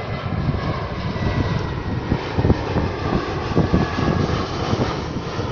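Airbus A320 jet airliner passing low, a steady rumble of its engines with a faint high whine that slowly drops in pitch.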